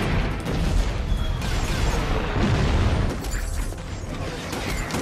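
Movie battle sound effects: a dense, heavy rumble of explosions and crashing debris, loudest for the first three seconds or so and then easing off.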